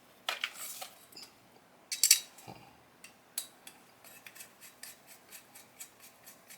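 Small metal parts clinking as the 2.5 mm hex screws of an aluminium handguard are tightened with a hex key: two louder metallic clatters in the first half, then a run of light ticks, about four a second.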